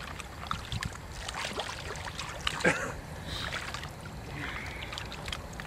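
Water sloshing and lightly splashing against a boat as a person moves in the river, with scattered small knocks. About two and a half seconds in there is one brief sound falling in pitch.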